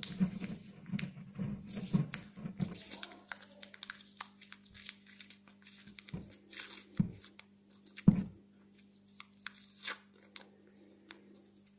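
Paper masking tape being pulled off its roll and wound by hand around a cotton-bud stick, giving irregular crackling and tearing sounds. The sounds are dense in the first few seconds, then sparser, with a louder rip about eight seconds in.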